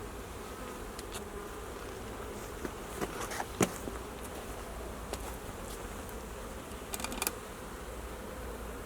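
Honeybees buzzing steadily around an opened hive. A few sharp clicks and knocks come about three seconds in and again near seven seconds, from hive parts being handled.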